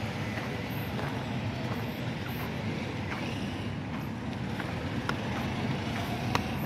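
Steady low rumble of outdoor background noise, with a few faint sharp clicks in the last two seconds.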